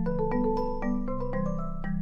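Background music: a light mallet-percussion tune of quick struck notes over a sustained bass line.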